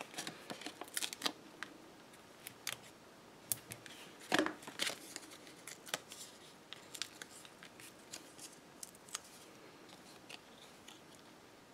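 Foam adhesive dimensionals being peeled off their backing sheet and pressed onto a paper label by hand: scattered faint clicks and paper rustles, with one louder tick about four seconds in.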